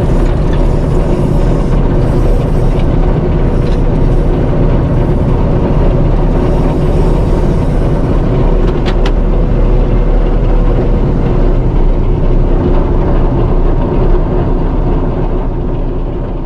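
Combine harvester's diesel engine running steadily, fading out near the end.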